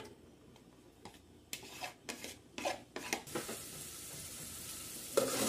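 Chopped onion tipped into hot oil in a stainless steel pot, with a few short knocks against the pot, then the oil begins to sizzle a little past halfway, growing louder near the end.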